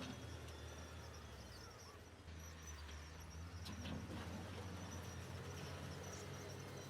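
Heavy diesel construction machinery (dump trucks and bulldozers) running with a steady low drone that dips briefly about two seconds in. A couple of short knocks come just before four seconds in.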